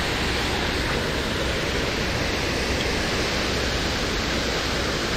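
Steady rushing of river water, an even continuous noise that does not change.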